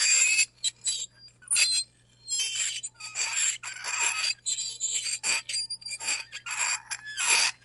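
Metal fork scraping across a ceramic plate in a run of short, irregular strokes, each with a thin high-pitched squeal.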